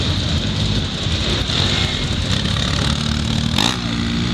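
Quad-bike (ATV) engines running at low speed in a slow-moving group, with a steady pitched engine note coming in about three seconds in and a single sharp click shortly after.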